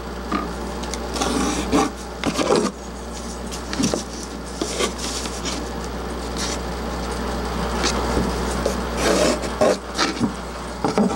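Pencil scratching along a ruler on 1/4 inch plywood as lines are drawn, in short irregular strokes with some rubbing and handling of the ruler, over a steady low hum.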